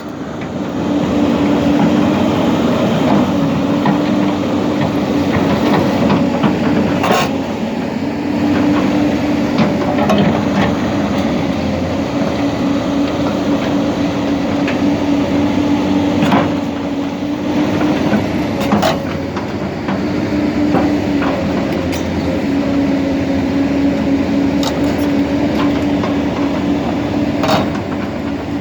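Hyundai excavator's diesel engine running steadily with a constant hum, with a few sharp metallic clanks from the machine scattered through.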